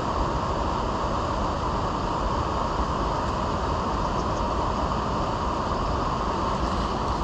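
Steady rush of river current flowing over a shallow gravel bed.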